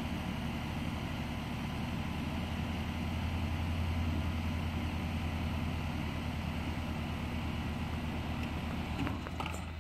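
Yaesu G-5500 antenna rotator motors running, a steady low electric hum as they drive the satellite antenna array, with a few clicks near the end as the level falls.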